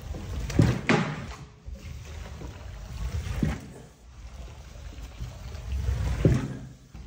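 Water splashing and sloshing on a wet area rug being washed: a few irregular swishes over a steady low rumble.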